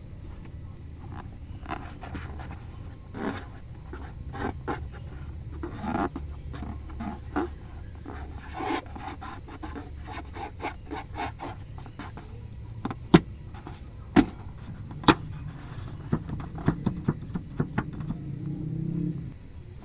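Slime being squished and mixed by hand: irregular sticky crackles and clicks, with three sharp loud snaps in the middle, over a steady low rumble.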